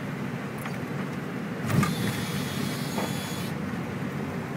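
Cockpit noise of a Boeing 747-400F rolling out on the runway after touchdown: a steady low rumble of the engines, airflow and wheels. About two seconds in there is a thump, then a sudden hiss that lasts under two seconds.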